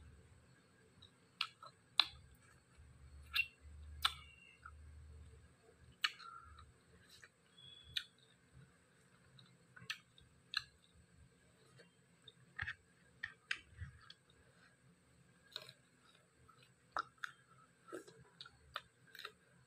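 Close-miked eating sounds: irregular wet clicks and smacks of chewing and lips as someone eats dry-fried pork with cucumber and chilli, with a faint low hum underneath.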